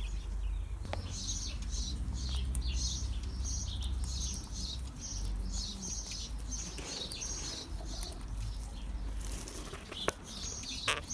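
Dry bedding or hay rustling as it is handled and spread, in quick repeated rustles about twice a second, over a steady low rumble.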